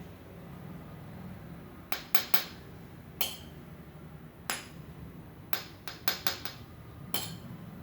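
Toy cooking-set utensils tapping and clinking against each other: about a dozen short, sharp taps in irregular clusters, some two or three in quick succession, starting about two seconds in.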